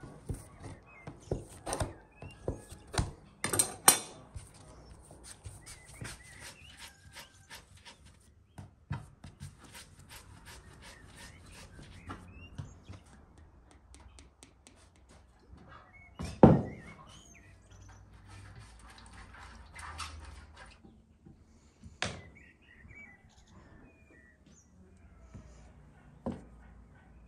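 Knife cutting dough and knocking on a wooden board: a quick run of sharp taps over the first several seconds, with small birds chirping in the background. A heavy thump a little past halfway, then a few lighter knocks.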